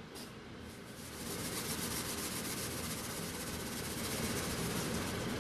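Salt pouring from a bag into a pot of water: a steady, grainy hiss that starts about a second in and keeps going.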